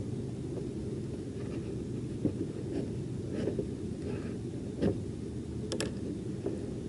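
Steady low rumble of wind on the microphone, with a few light clicks and taps of hands working a hook out of a small channel catfish.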